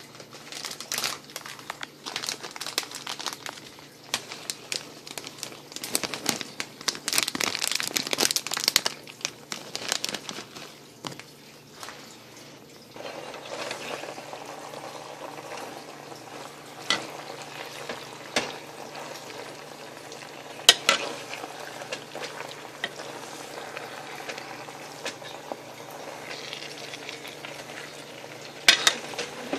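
A metal slotted spoon scrapes and knocks in a pan as shredded cheese, sauce and fettuccine are stirred together. A run of rapid scrapes comes first; from about halfway through, a steady sizzle from the pan takes over, with occasional sharp spoon clicks.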